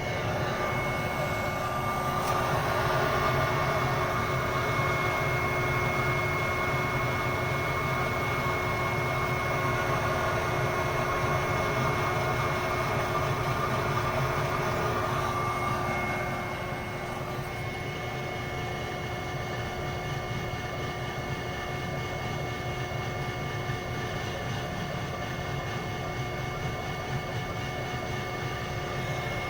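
Weil-McLain boiler running with a steady vibrating hum: a low rumble under several steady tones. It eases slightly about halfway through.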